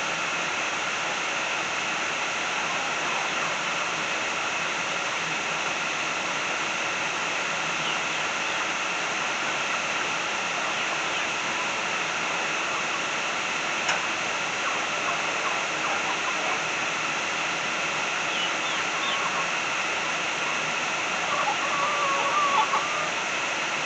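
Steady rushing noise with a faint constant whine through it, and soft scattered chirps and calls of poultry. The calls come a few times and grow a little stronger near the end.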